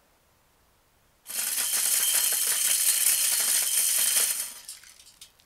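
Timed corn feeder going off: its spinner throws corn in a sudden loud rattling spray with a faint motor hum beneath. The spray lasts about three seconds, then trails off into a few scattered ticks.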